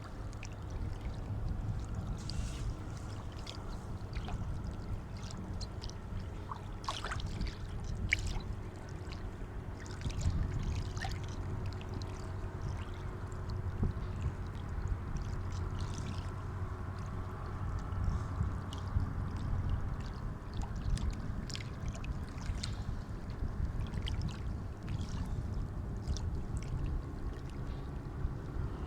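Sea water washing and lapping: a steady low rumble with small splashes scattered throughout.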